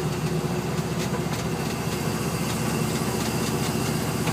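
Engine of a 1958 Chevrolet 2.5-ton truck running steadily while the truck cruises at low speed, heard from inside the cab.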